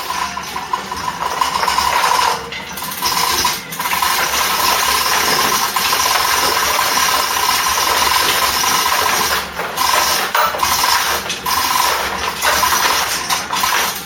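Electric hoist motor running in stretches with a steady whine, stopping and restarting several times as the load is jogged.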